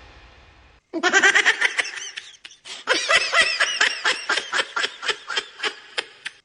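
A person laughing hard in a long run of quick, high-pitched 'ha' bursts that starts about a second in, breaks off briefly, resumes, and slows toward the end before stopping suddenly.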